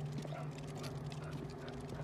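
Dogs walking on leash, their claws clicking on pavement in a quick, irregular patter over a steady low hum.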